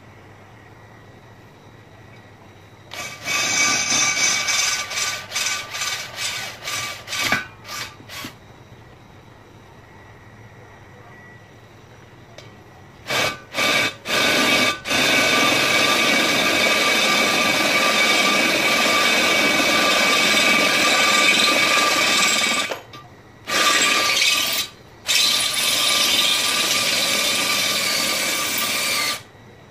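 Electric drill boring into the steel wall of an LPG gas cylinder: the motor whines over the bit grinding through the metal. It starts as a series of short trigger pulses, then after a pause runs in longer stretches, stopping briefly a few times.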